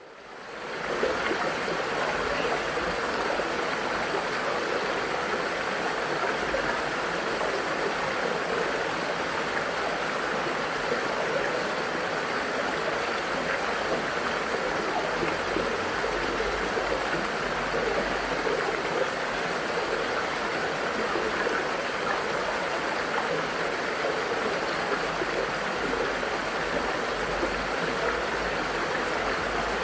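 Ornamental garden waterfall: water cascading over rocks and splashing into a pool, a steady, even rush that fades in over the first second.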